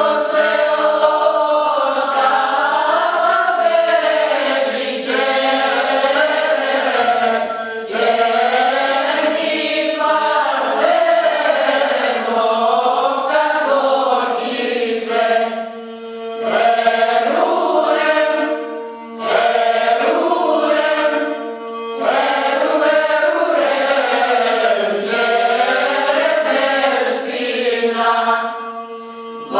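Choir of mostly women's voices singing Greek Christmas carols (kalanta) in unison phrases over a steady held drone note, with short breaths between lines.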